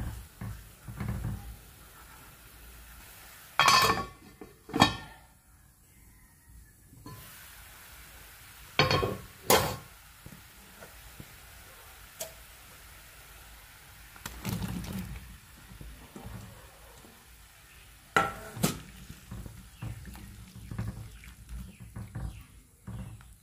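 Curry gravy simmering and sizzling in a kadai while a spatula stirs it. A few sharp knocks and clinks against the pan come through it, a pair about four seconds in, another pair around nine seconds, and one more near eighteen seconds.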